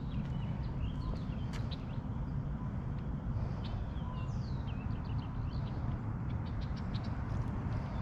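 Birds chirping: scattered short calls and a few falling whistles, over a steady low rumble.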